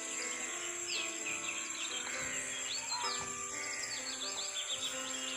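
Birds chirping in quick, scattered calls over a steady high-pitched insect drone, with soft sustained instrumental music underneath.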